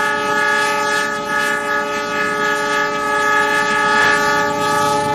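Train horn sounding one long, steady blast, several notes held together as a chord.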